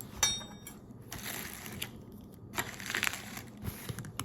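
Crinkling and rustling from shrimp being handled and their tails pulled off by hand. There is a short crackly crinkle just after the start, then two longer rustling stretches, about a second in and again around three seconds in.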